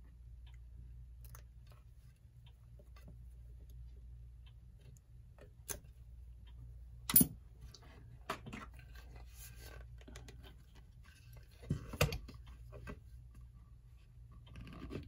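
Wire cutters snipping through an old clock power cord: two sharp snips about seven and twelve seconds in, amid light clicks and handling of the wire.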